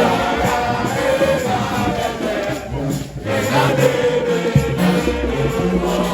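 Music with a stepping bass line and voices singing together in held notes, like a group chant, with a short drop in loudness about three seconds in.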